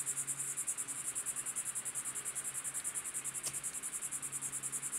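Insects chirping in a steady, rapid, even pulse, high-pitched.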